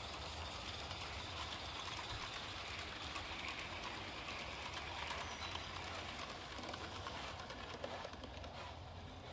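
Wheels of a 16mm-scale garden railway train clicking over the rail joints as a long rake of coaches and wagons rolls past, with many quick light clicks over a steady hiss. The clicking thins out and fades near the end as the last wagons go by.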